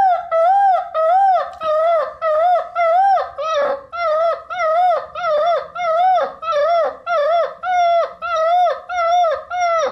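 Basset hound puppy howling: a quick chain of short rising-and-falling notes, about two a second.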